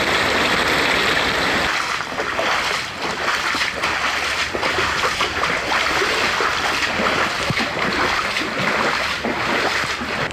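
Floodwater rushing across a road in a steady, loud torrent. About two seconds in, this gives way to a firefighter's boots wading through shin-deep floodwater, splashing at each step.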